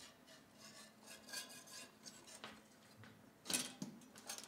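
Stainless steel lockwire, 32 thousandths thick, being handled and pulled tight against a steel bolt head: faint scraping of wire on metal with a few light metallic clicks, the most distinct about three and a half seconds in.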